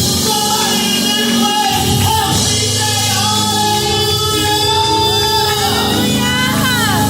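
Church music: voices singing over instrumental backing, with held notes and sliding vocal runs in the second half.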